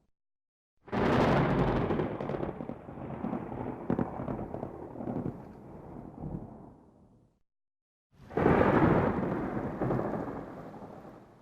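Two separate claps of thunder, each starting suddenly and loud, then rolling and rumbling as it dies away over several seconds. The first comes about a second in and fades out after about six seconds; the second breaks about eight seconds in.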